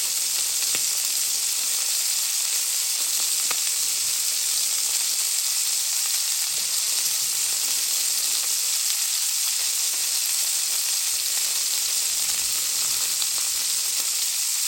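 Filet mignon steaks searing in a cast-iron skillet: a steady, high-pitched sizzle, with two faint pops in the first few seconds.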